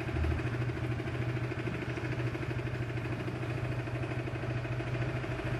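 Motorcycle engine idling steadily, with a fast, even pulse.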